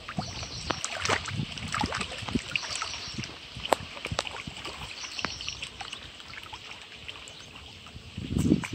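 Small waves lapping against the rocks at the lake's edge, with scattered clicks and trickles of water. A louder rushing sound comes in near the end.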